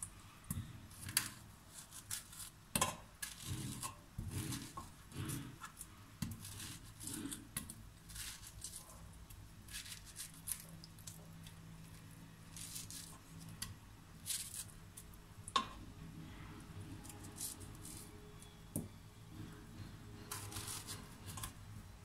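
A knife cutting through unpeeled peaches held over a stainless steel pot, with irregular soft taps and clicks as the blade and the falling chunks of fruit hit the pot.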